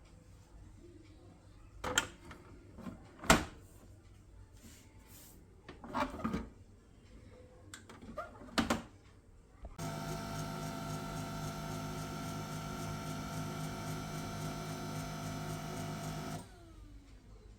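A few sharp clicks and knocks, then an HP LaserJet M1136 MFP printer's motor whirs steadily for about six seconds and cuts off suddenly: the printer going through its start-up initialisation.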